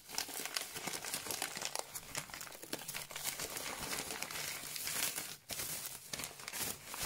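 Christmas wrapping paper being crumpled and pulled apart by hand, a continuous crinkling and crackling with a short break about five seconds in.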